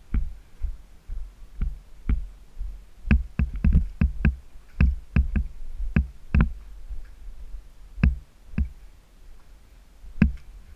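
Electronic intro music: sharp percussive hits at an uneven rhythm over a low, steady bass hum.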